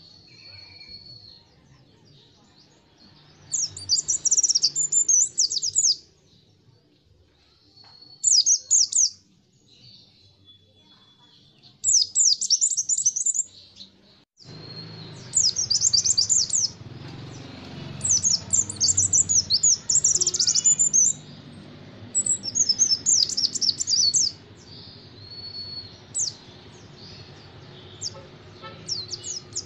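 Caged white-eye (pleci) singing: repeated bursts of rapid, high chirping notes, each a second or two long, with short pauses between them and a few brief thin whistles.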